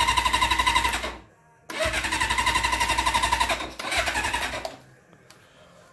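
Electric starter of a 1980 Suzuki GS550 cranking its four-cylinder engine in three bursts, the last one short, with a rhythmic whining churn; each burst stops abruptly without the engine catching, a no-start the owner is chasing in the ignition system.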